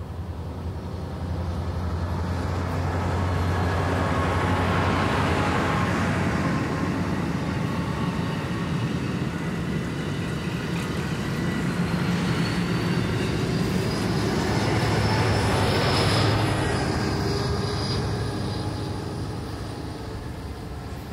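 Amtrak passenger train passing. The rumble swells twice, about five seconds in and again around sixteen seconds, and a thin high tone rises and then falls in pitch around the second swell.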